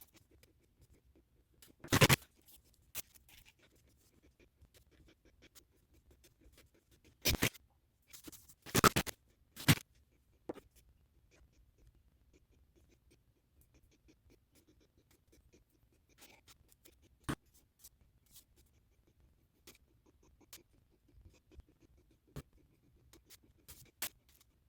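Intermittent scratching and scraping from hand-working a mortar-and-clay sculpture, with a few short louder scrapes among scattered quiet clicks.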